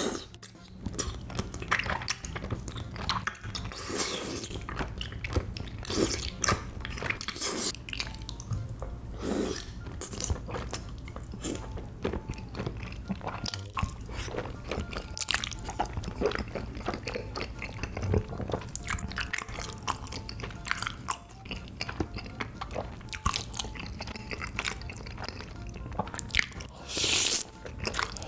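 Close-up eating sounds of a person eating tteokbokki: wet chewing and biting of the chewy rice cakes and sauce, with many small clicks. There are loud slurps at the start, about four seconds in, and a longer one near the end.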